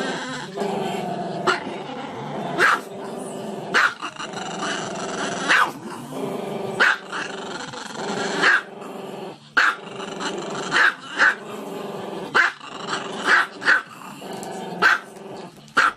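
Small dog howling with its head raised in a drawn-out cry, broken by sharp barks or yips about once a second.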